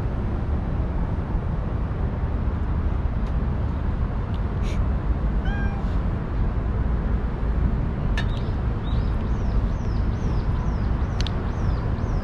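A ginger stray cat meows once, about halfway through, over a steady low background rumble. A couple of sharp clicks follow, and near the end comes a quick run of short, high, falling chirps.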